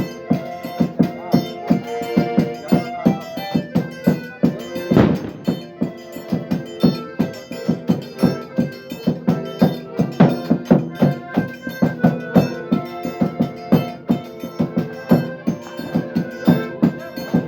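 Accordion music with a steady quick drum beat, forró style, with held chords over the rhythm. A short noisy burst cuts across it about five seconds in.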